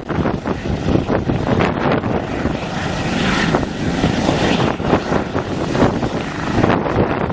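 Airbus H145 helicopter's twin turboshaft engines, main rotor and Fenestron tail rotor at lift-off power as it rises into a low hover: a loud, steady rush of rotor and turbine noise, growing brighter about three to five seconds in.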